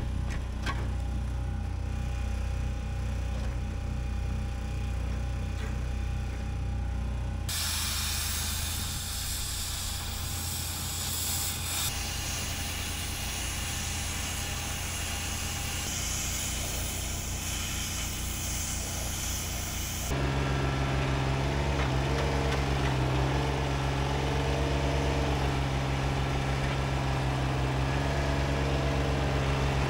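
Steady engine running, then hissing over machine noise in the middle section. From about 20 seconds in, a louder, deeper engine note: a John Deere 755 compact tractor's diesel engine running steadily.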